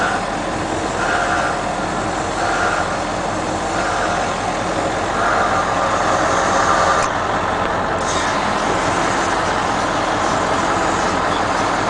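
Power Stroke diesel of a 1997 Ford Super Duty bucket truck running steadily with its PTO engaged, driving the hydraulic pump that swings and raises the aerial boom.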